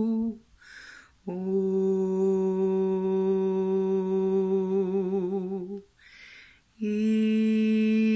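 A woman humming long held tones with a slight waver in pitch, taking a short breath between notes: one note ends about half a second in, the next is held for about four and a half seconds, and another begins about a second before the end.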